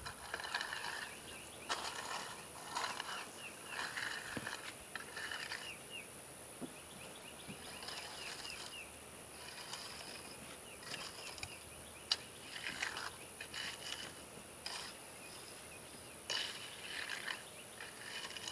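Garden rake scraping and dragging crushed granite over a gravel base in repeated short strokes, with birds chirping in the background.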